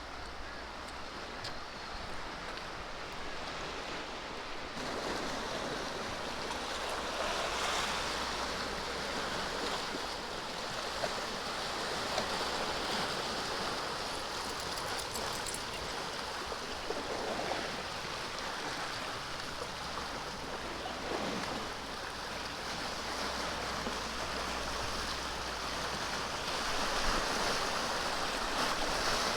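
Small seawater waves washing and lapping along the shore in a steady rushing wash, swelling slightly a few seconds in.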